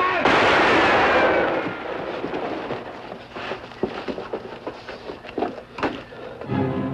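A gunshot about a quarter second in, its echo dying away over about a second and a half, followed by scattered faint knocks and clicks. Music comes in near the end.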